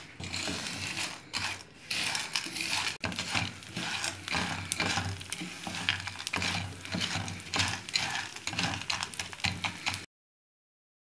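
Wooden spatula scraping and stirring edible gum crystals (gond) shallow-frying in ghee in a nonstick frying pan, a rapid, irregular rattling scrape over a low hum. It cuts off abruptly about ten seconds in.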